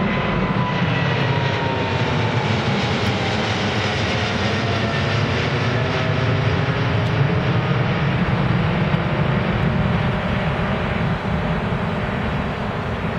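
Boeing 777-300ER's twin GE90 turbofans at full takeoff thrust, a loud, steady roar as the jet climbs away overhead. A high engine whine falls in pitch over the first few seconds as the jet passes.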